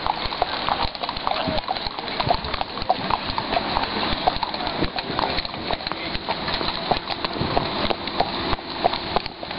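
Horses' hooves clip-clopping on an asphalt road at a walk, several horses at once, making a quick, uneven run of sharp clops over steady background noise.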